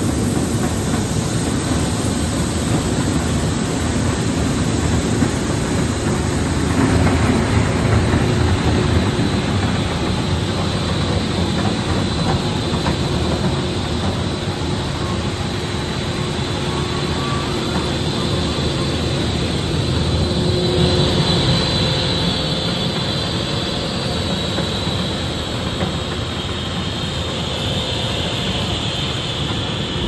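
Aceretech ACS cascade plastic-film pelletizing line running, a steady loud machine noise as film is fed in and processed. A high whine joins about twenty seconds in.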